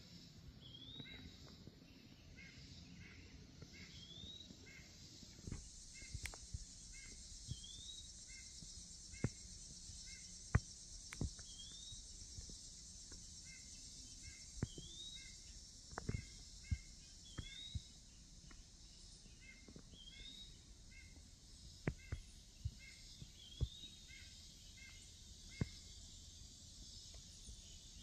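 Faint woodland creek ambience: a bird repeating a short rising call every second or two over a steady high insect hum, with scattered sharp clicks.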